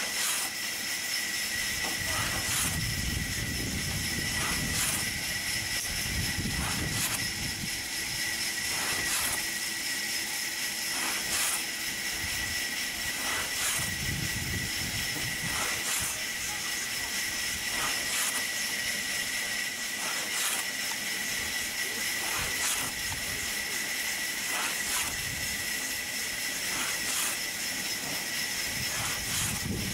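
Large hand-made saw being worked by hand through a rain tree log, one rasping stroke about every two seconds, over a steady high hiss.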